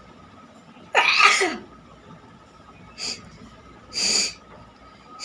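A person sneezing hard about a second in, the sneeze ending in a voiced cry that falls in pitch, then short, sharp bursts of breath through the nose at about three and four seconds and again at the end. The sneezing is set off by tickling the inside of the nostril with a chili.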